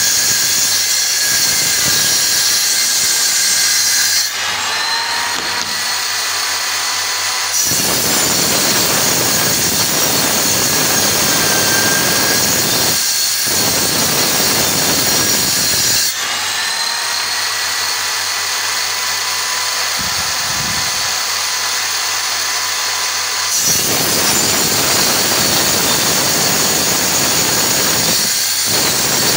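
Circular saw mounted upside down under a table as a makeshift table saw, running loud with its blade cutting laminated particleboard. Twice, about four and sixteen seconds in, the cutting noise drops away for a few seconds and the motor's whine rises as the blade spins free, then the cut resumes.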